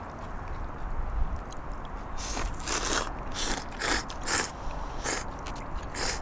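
Two people slurping hot somen noodles (nyumen) in broth, a run of about seven short slurps starting about two seconds in.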